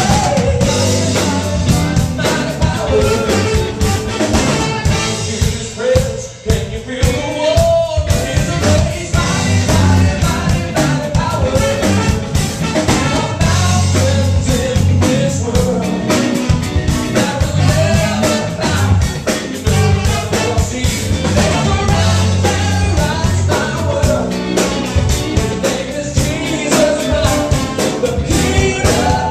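A live rock band with a horn section of saxophones and trombone, electric guitar, bass and drum kit playing, while a male singer sings lead into a microphone.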